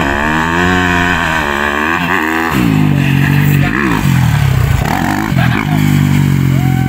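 Yamaha YZ250 two-stroke motocross bike engine revving hard as it is ridden, its pitch climbing and falling repeatedly with throttle and gear changes, with a sharp drop about two and a half seconds in.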